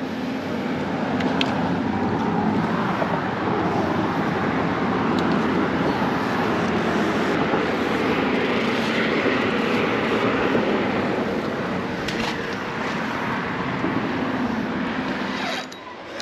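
Steady rushing noise of road traffic passing over the highway bridge, swelling a little midway and dropping off abruptly near the end.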